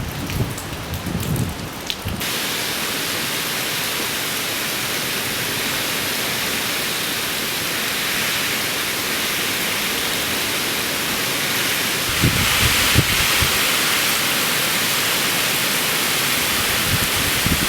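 Heavy storm rain falling, a dense, steady hiss, from a tropical storm. Gusts of wind buffet the microphone at the start and again about twelve seconds in.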